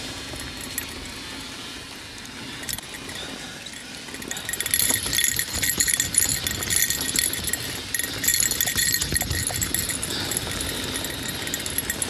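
Mountain bike rattling and jangling as it rolls down a rough singletrack, its chain and parts clattering over the bumps. The clatter gets louder and busier about four seconds in.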